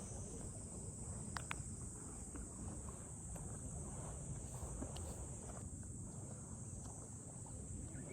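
A steady, high-pitched chorus of insects over a low rumbling background, with a few faint clicks about a second and a half in.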